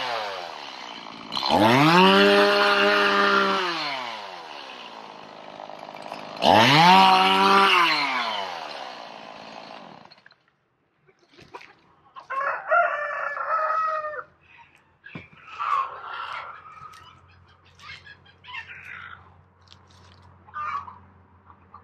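Two-stroke chainsaw revved up and let back down twice, then shut off about ten seconds in. A rooster crows a couple of seconds later, followed by scattered chicken clucks.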